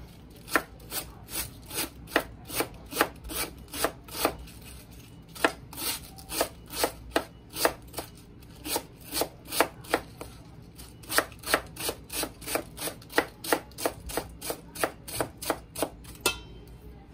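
Large kitchen knife shredding cabbage on a wooden cutting board: steady chopping knocks, about two to three a second, with short breaks about four and eight seconds in.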